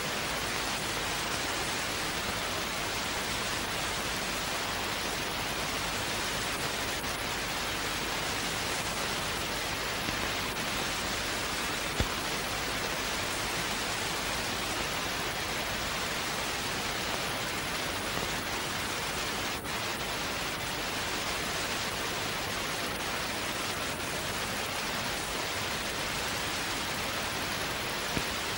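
Steady television static hiss on an empty sound channel during a broadcast test card after closedown, with a couple of faint clicks.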